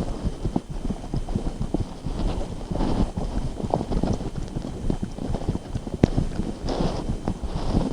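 Close-miked chewing of braised pork belly and white rice: a dense, uneven run of wet mouth clicks and smacks.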